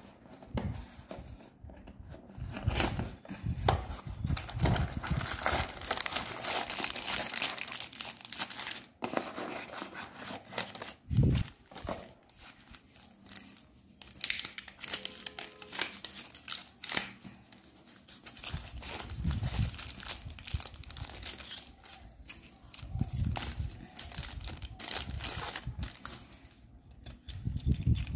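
Packaging being handled and unwrapped by hand: a cardboard box opened, then crinkling plastic wrap and a foam sheet, in irregular rustles with a few dull knocks.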